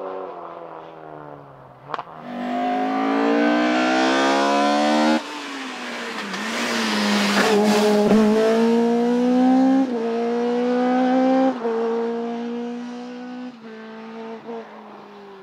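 Rally car accelerating hard past, its engine climbing steeply in pitch, loudest with a rushing noise as it goes by, then changing up through gears in quick steps as it moves away and fades. A single sharp crack about two seconds in.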